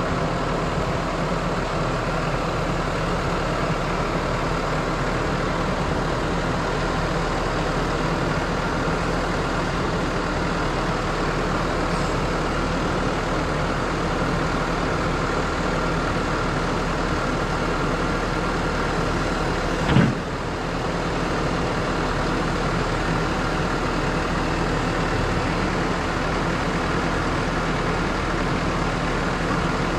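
Tractor engine running steadily, with one sharp clunk about two-thirds of the way through.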